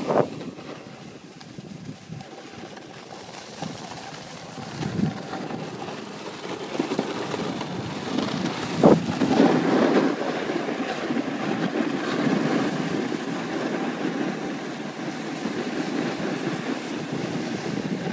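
Wind rushing over a handheld phone's microphone during a downhill ski run, with the hiss and scrape of skis on packed snow. There is a brief sharp louder knock about nine seconds in.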